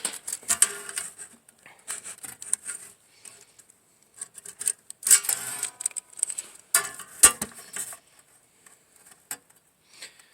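Sheet metal being handled and marked out: scrapes and light metallic clinks, with a sharp clack about seven seconds in.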